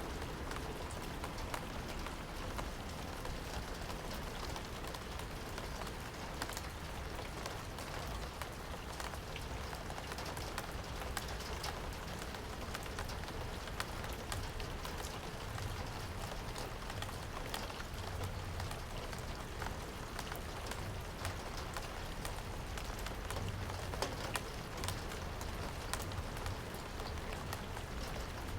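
Steady rain falling, with many separate drops striking a hard surface as sharp ticks over an even hiss.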